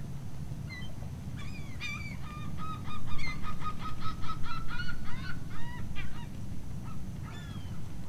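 Flock of waterbirds calling across a shallow lagoon, with a rapid run of evenly repeated call notes for a few seconds in the middle and scattered single calls around it, over a low steady rumble.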